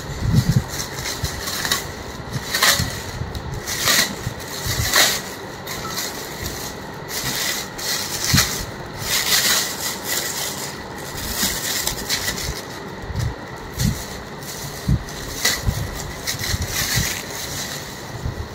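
Clear plastic wrapping rustling and crinkling in irregular bursts as it is pulled off a microphone stand.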